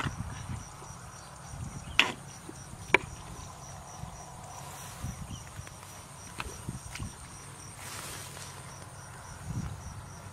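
Insects trilling steadily in a high, pulsing chorus, over wet squelching and sloshing as bare feet and hands work through shallow mud. Two sharp clicks stand out about two and three seconds in.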